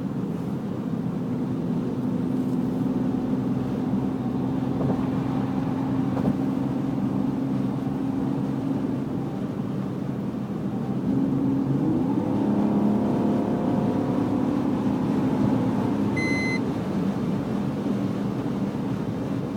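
BMW E46 330's straight-six running with a whine, steady at first, then rising in pitch about eleven seconds in as it picks up speed. A short beep sounds near the end.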